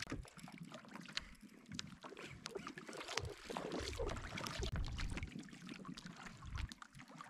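Water lapping and splashing against a kayak hull as a hooked fish tows it, with scattered small clicks and knocks and uneven low rumbling.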